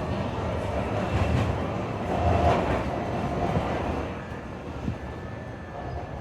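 Interior running noise of an electric tram in motion: a steady low rumble of wheels on rail with faint motor tones. It swells louder about a second in and again around two and a half seconds, then eases off somewhat.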